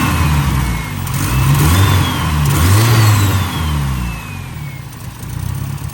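Mitsubishi Starion's turbo four-cylinder engine being revved in three throttle blips, the last one the longest, then settling back toward idle near the end. It is now firing on all four cylinders, with the spark plug wires reconnected and the ignition timing freshly set.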